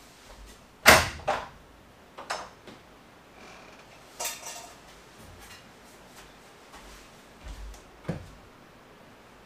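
Scattered knocks and clatters of things being handled in a small room: a loud knock about a second in, a few more over the next few seconds, and one more near the end.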